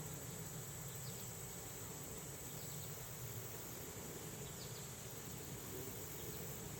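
Steady high-pitched trilling of an insect chorus, with a low even rumble beneath it and a few faint short chirps.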